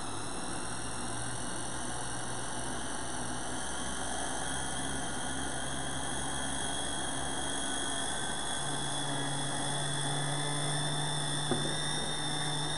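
Battery-powered Pampered Chef Flex+ power handle driving its food processor at the highest speed to chop cilantro: a steady motor whine. There is one small click about eleven and a half seconds in.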